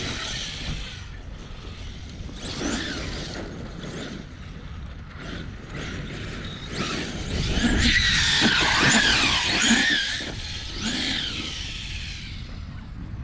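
Large-scale 30° North 5T electric RC truck running hard on 12S: its brushless motor whines up and down with the throttle while the tyres skid and scrabble on the ground, loudest for a couple of seconds past the middle.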